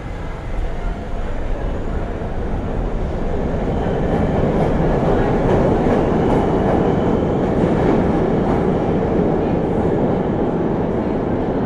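New York City subway train running along an underground platform. The rumble of wheels on track grows louder over the first few seconds, stays loud through the middle, then eases slightly, with faint wheel clicks and a thin squeal near the end.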